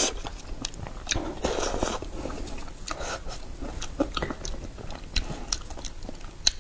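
Eating raw oysters: chewing with many small wet clicks and smacks.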